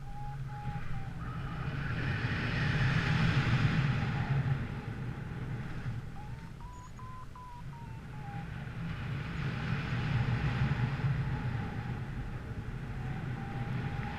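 Wind buffeting the microphone in gusts over a steady low rumble, with a faint thin whine that rises and falls a few times.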